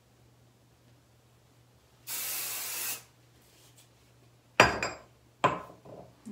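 One steady hiss of hairspray sprayed from the can, lasting about a second. About two seconds later come two sharp knocks a second apart, the loudest sounds here, with a brief ring.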